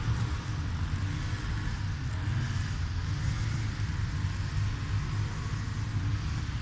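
Steady low rumble, most of it deep in pitch, running evenly with no distinct events.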